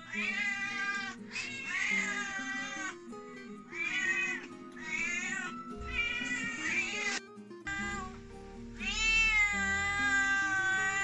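Siamese cat meowing over and over, five or six separate calls, then one long drawn-out meow starting about nine seconds in. Background music with steady low notes plays underneath.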